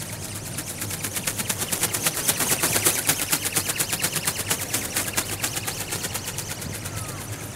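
Film-covered wings of a motor-driven robot bird ornithopter flapping as it flies close by: a rapid, even rhythm of snaps that swells to its loudest a couple of seconds in, then fades.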